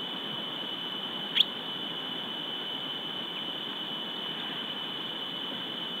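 Steady hiss with a constant high-pitched whine from the webcam's audio feed, broken about a second and a half in by one short, sharp squeak that rises quickly in pitch.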